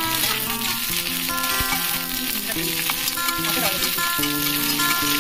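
Chopped vegetables sizzling in hot oil in an iron kadai, a spatula scraping as they are stirred, over background music of long held notes.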